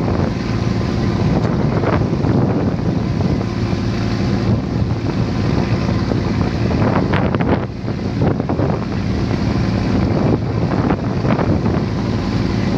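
Fishing boat's engine running steadily under way, a low hum under loud rushing water along the hull and wind buffeting the microphone.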